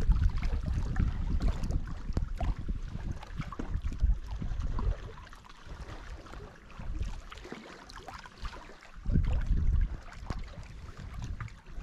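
Wind buffeting the microphone in gusts, strong for the first few seconds, easing off, then gusting again about nine seconds in. Scattered small clicks and knocks sound over it.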